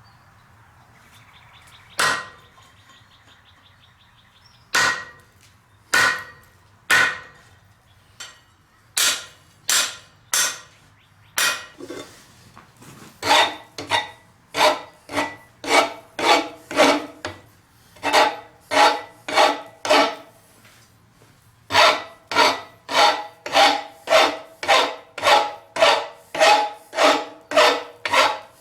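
Hand hammer striking hot steel on an anvil: a few scattered blows at first, then a steady run of about two ringing blows a second, with a short break about two-thirds of the way through.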